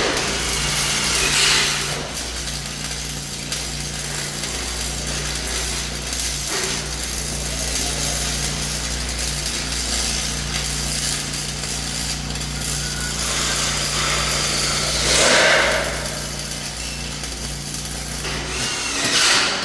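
Power tool cutting metal, running steadily with a low motor hum. It swells louder briefly twice and stops abruptly near the end.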